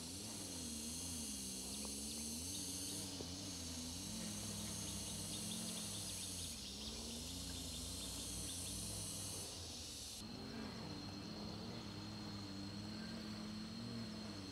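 Background chorus of insects calling: a high, hissing drone that cuts in and out every few seconds, with a thin steady high note and fast ticking. A low, wavering hum runs underneath.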